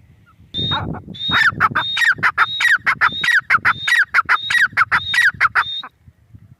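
Grey francolin calling: a rapid, loud series of repeated high phrases, each a high note dropping into a lower note, about one and a half a second, that stops about a second before the end.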